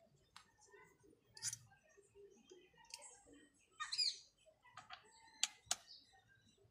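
A bird chirps once about four seconds in, the loudest sound, over scattered light clicks and taps of chainsaw parts and hand tools being handled on a workbench.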